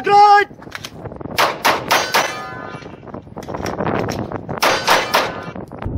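A short shot-timer beep, then a pistol fired in two quick strings of about four shots each, about three seconds apart. Each string rings with metallic clangs from hits on the car body used as a target.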